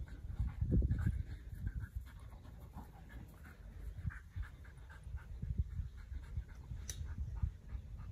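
Dog panting rapidly during play, with low rumbling noise underneath and a single brief click about seven seconds in.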